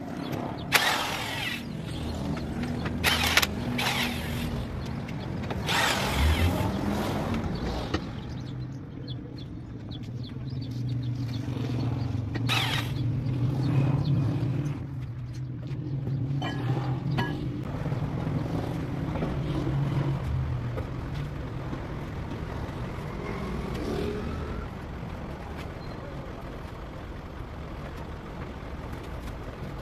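Several short bursts from an electric impact wrench undoing the nuts on a Massey Ferguson 375 tractor's rear wheel, mostly in the first half. Underneath runs a steady low engine hum, loudest around the middle.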